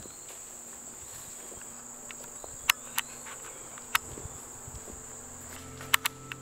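Crickets chirping as a steady, high-pitched insect buzz that cuts off near the end, with a few sharp clicks over it.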